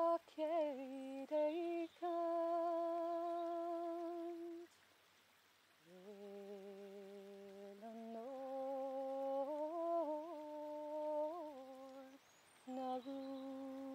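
A single voice humming a slow, ornamented sean-nós air without words: long held notes with small turns, in phrases broken by a pause of about a second before the middle and a short one near the end.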